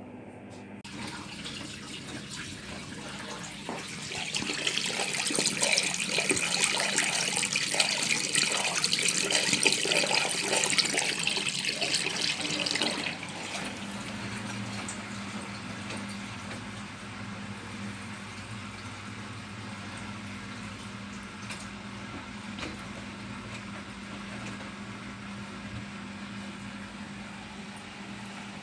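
Bosch Serie 6 washing machine taking in water early in a 60° cotton cycle: rushing water that builds up, runs loud for several seconds, then drops about halfway through to a quieter steady hum.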